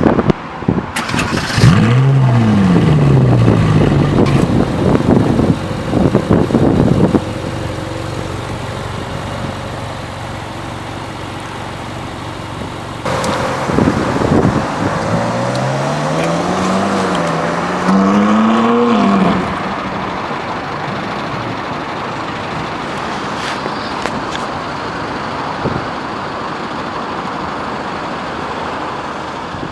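Ferrari 458 Italia's 4.5-litre V8 revving: its pitch sweeps up and down in the first few seconds, then it runs more quietly. From about thirteen seconds in the pitch climbs again in a series of rising sweeps, then it settles to a steady, quieter running.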